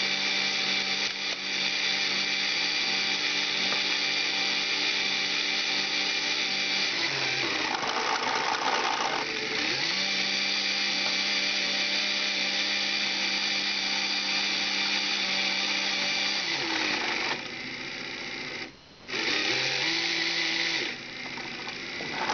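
LEGO electric motors and gear trains of a kite-painting machine running with a steady whine as they drive the brush arm. The whine sags in pitch and picks back up around eight to ten seconds in, cuts out briefly near the end, then comes back lower.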